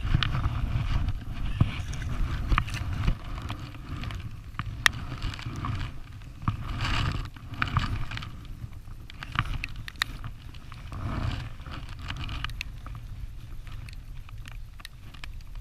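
Wind buffeting the microphone as a steady low rumble that swells and eases, with scattered sharp clicks and rustles over it.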